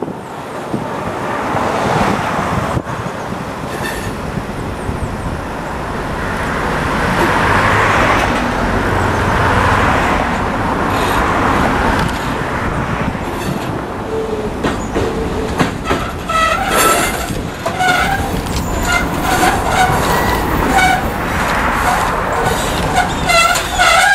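EMD GP9 diesel locomotive running, its two-stroke V16 engine rumbling under steady rail noise. From about two-thirds of the way in, its air horn sounds in several short blasts, growing stronger near the end.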